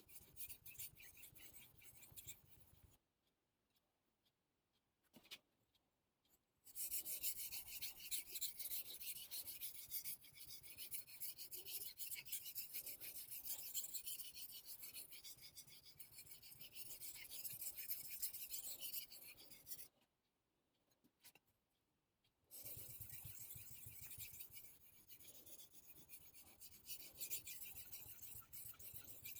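Steel knife blade stroked back and forth on the 800-grit side of a Naniwa combination Superstone, a steady scraping. It stops for a few seconds about three seconds in and again about twenty seconds in.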